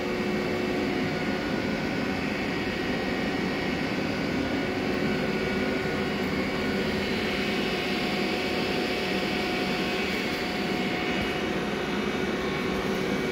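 Steady machine hum with several faint whining tones, unchanging throughout.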